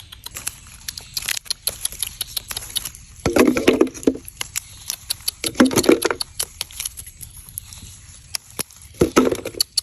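Irregular clicks and taps of hands working with objects, with three short rough scraping or crunching bursts about three, five and a half, and nine seconds in.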